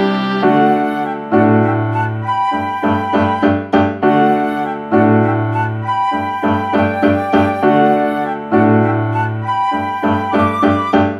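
Instrumental background music: a melody of quick notes over held bass notes that change every few seconds.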